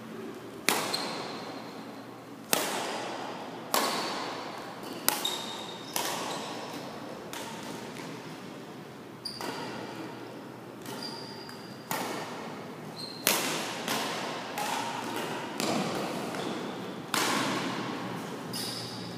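Badminton rackets striking a shuttlecock in a rally: sharp smacks about every one to two seconds, each ringing on in the echo of a large gymnasium hall.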